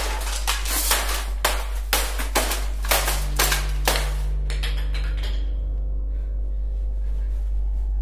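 A quick, irregular run of sharp knocks and bangs, about two a second, thinning out and stopping after about four and a half seconds, over a steady low musical drone.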